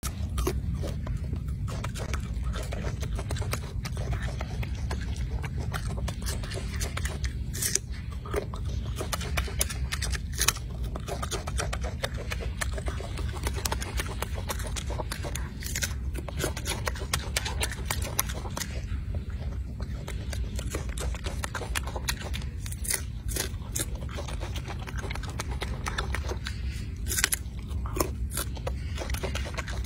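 Golden snub-nosed monkey chewing and biting food, many small crunching clicks over a steady low rumble.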